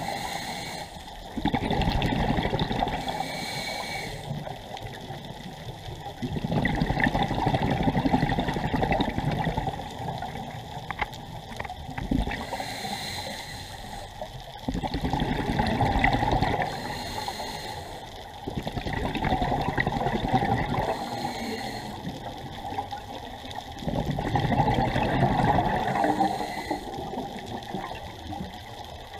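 Scuba diver breathing through a regulator underwater: a rush of exhaled bubbles every few seconds, with a quieter hiss of inhalation between.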